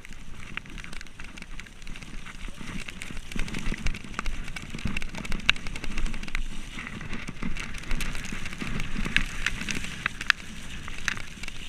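Downhill mountain bike ridden fast down a rough dirt trail: tyres rumbling on the ground, with frequent sharp clacks and rattles from the bike over bumps.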